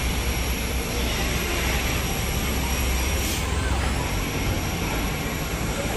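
Bus engine running on the road, a steady rumble, with a brief hiss about three seconds in.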